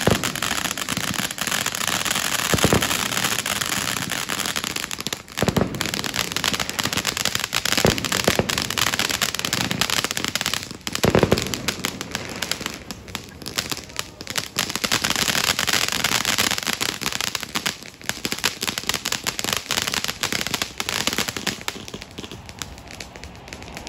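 Ground fireworks going off on a beach: a dense crackling hiss of spraying sparks, with a few louder bangs, thinning out near the end.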